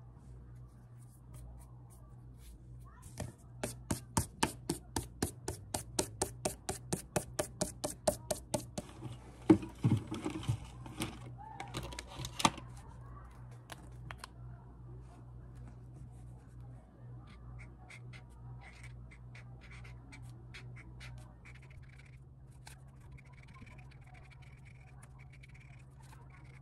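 A quick, even run of about twenty sharp clicks, four or five a second, then a few louder knocks as objects are handled on a desk, then faint small taps, over a steady low hum.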